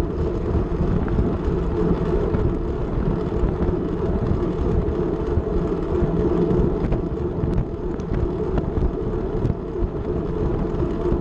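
Steady wind rumble on the microphone, with a few faint clicks in the second half.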